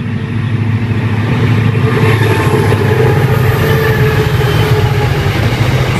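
A freight train hauled by NSW C-class diesel-electric locomotives passing at speed. The locomotives' engines make a steady low drone that grows loud over the first second and then holds.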